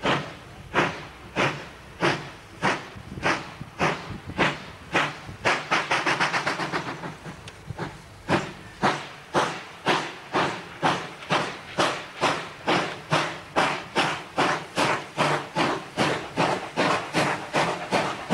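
Steam locomotive working hard as it starts a passenger train, its chimney exhaust beats sharp and evenly spaced and slowly quickening from under two to over two a second. About five seconds in the beats suddenly run together in a fast flurry and fade for a moment, as the driving wheels slip, before steady beats pick up again.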